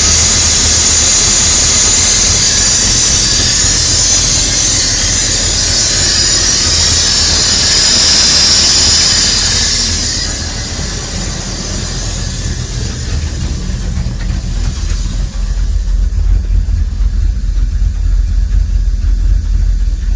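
A 1999 Dodge Ram 1500's 5.9-litre Magnum V8 idling out of gear, with a loud hiss from the top of the engine that fades out about halfway through. After that the idle runs on with an uneven, pulsing beat. The intermittent hiss and rough idle at idle are the fault the owner is trying to trace.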